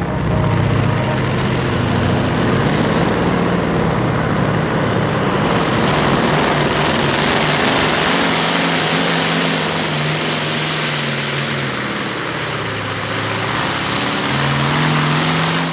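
Modified pulling tractor's engine running flat out under load as it drags the weight-transfer sled down the track: a loud, steady heavy engine note whose pitch sags a little in the second half and picks up again near the end.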